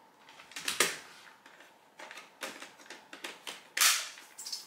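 Hard plastic clicks and knocks of a Dyson V15 Detect stick vacuum being put together, as the soft roller cleaner head and the wand are fitted and snapped into place. There are about a dozen separate clicks, with the loudest knock near the end.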